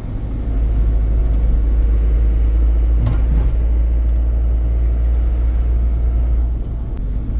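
Steady low rumble of engine and road noise from a moving vehicle, with a brief knock about three seconds in.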